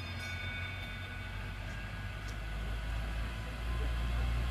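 Engine of a road-going land train approaching along a road, a low steady hum that grows louder near the end.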